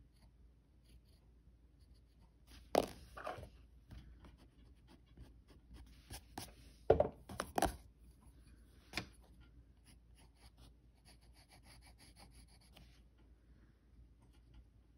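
Pencil scratching on paper in short, quiet strokes as teeth are sketched, with a few sharper taps about 3 and 7 seconds in.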